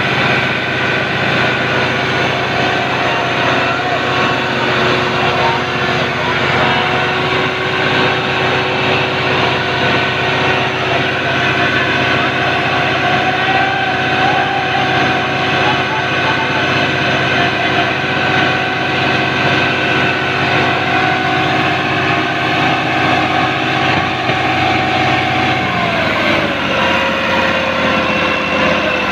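Diesel engines of a Massey Ferguson 375 and a Fiat tractor running hard at high, steady revs, straining together under the heavy pull of a stuck, loaded trolley. About 26 seconds in the revs fall as the throttle eases.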